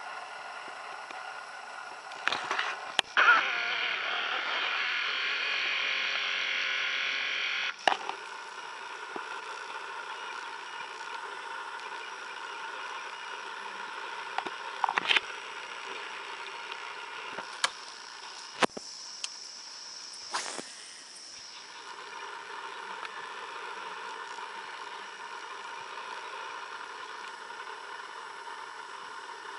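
Steady outdoor chorus of frogs and insects: layered high trilling and calling, louder for a few seconds near the start and changing abruptly a couple of times, with scattered sharp clicks.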